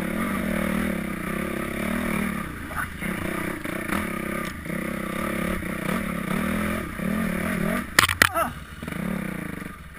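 Dirt bike engine running under the rider, its revs rising and falling over the rough ground, with clatter from the bike. About eight seconds in comes a short burst of sharp clacks and a brief squeal, after which the engine drops lower and quieter as the bike slows.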